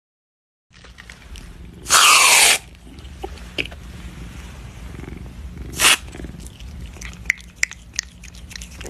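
A black cat gives a loud, harsh yowl that falls in pitch, then a second short cry a few seconds later, with faint clicks near the end.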